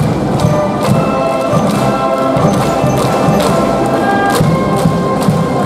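A school brass band playing a cheering tune in the stands: sustained brass notes over a steady drumbeat.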